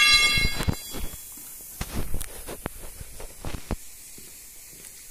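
A steel tyre tool rings out against a tractor wheel rim just after being struck, and the ringing dies away within about half a second. Then comes a handful of scattered knocks and clatters as the tyre is worked off the rim.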